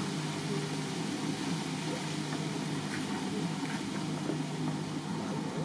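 A steady background hum with a low drone, like a motor running, over even ambient noise.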